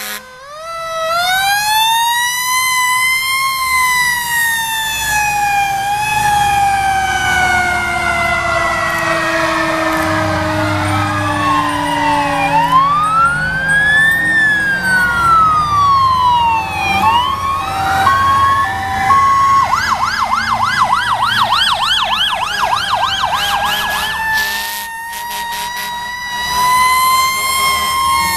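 Several fire engines' sirens sounding together as the trucks pass. One siren rises sharply about half a second in, then slowly falls in pitch, while others wail up and down. From about 20 seconds in, a siren yelps rapidly for a few seconds, and another rises near the end.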